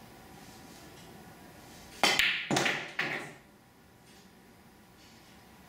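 A pool shot hit with outside (reverse) english. There are three sharp billiard-ball clacks about half a second apart: the cue tip on the cue ball, then ball-on-ball and ball-on-cushion impacts. Each rings briefly and dies away.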